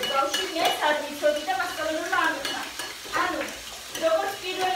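A woman talking over a few sharp knife taps on a wooden cutting board as raw potatoes are sliced.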